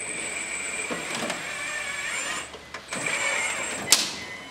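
RC4WD 1/14 scale mining truck's electric drive whining as it creeps up a ramp under load, stopping briefly near the middle and starting again. A sharp knock near the end, as the whine cuts off.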